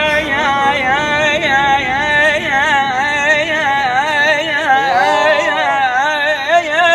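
A voice singing long, wavering ornamented notes in an Iraqi Arabic song, the pitch trembling and bending without pause.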